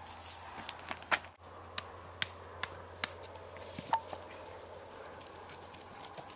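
Quiet outdoor background: a low steady hum with about a dozen faint, irregular sharp clicks and taps.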